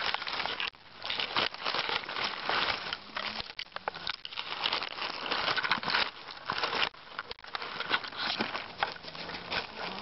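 Close rustling and crackling as a cat rubs against and jostles the camera, its fur brushing over the microphone, with dry leaves and twigs crackling underneath.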